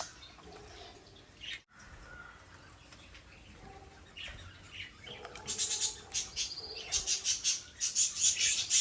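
A feeding flock of small parrots, sun conures, pineapple conures and lovebirds, chirping. The calls are sparse and faint at first, then from about five seconds in turn into a busy run of rapid, high-pitched chirps.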